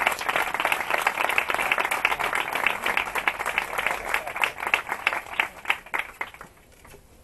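Audience applauding: dense clapping that thins to a few scattered claps and stops about six and a half seconds in.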